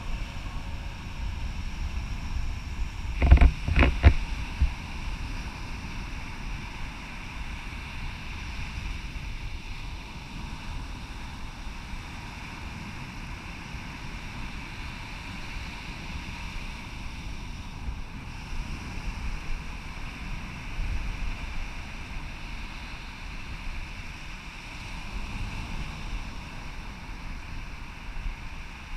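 Beach ambience at night: gentle surf and wind buffeting the microphone, an even hiss with a low rumble. Two loud bumps come about three and a half and four seconds in.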